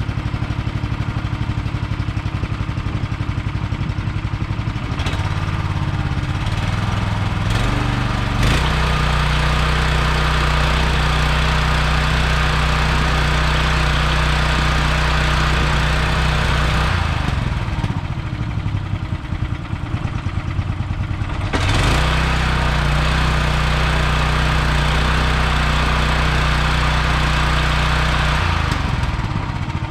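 Honda GX390 single-cylinder engine on a pressure washer running just after starting. It steps up to a steady higher speed a few seconds in, sags and wavers for a few seconds past the middle, picks back up, then slows near the end.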